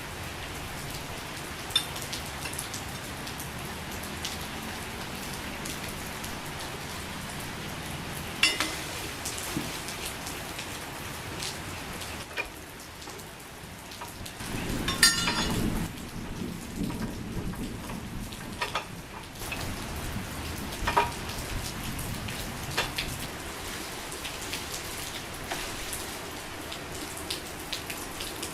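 Steady rain falling, with scattered drops ticking sharply on nearby surfaces. A louder spell with a low rumble and clatter comes about halfway through.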